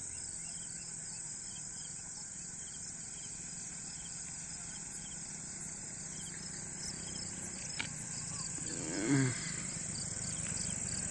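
Rural ambience with a steady high chirring of crickets and other insects. About nine seconds in there is a single short, low animal call that falls in pitch, and just before it a sharp click.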